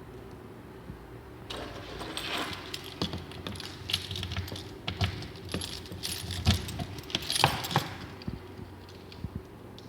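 Irregular metallic clicking and clattering, like small hard metal parts or coins being handled, from about a second and a half in until near the end, over a steady low hum.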